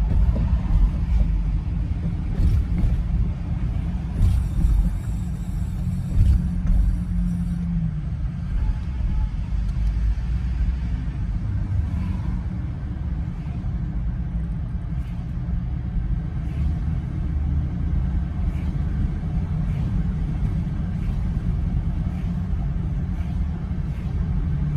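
Steady low rumble of a Jeep driving at road speed, its road and engine noise heard from inside the cabin.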